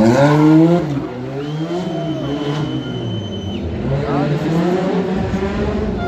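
Rally car engine on a special stage, its revs climbing and dropping several times in quick succession, loudest in the first second. A thin steady high whistle sounds for about two seconds in the middle.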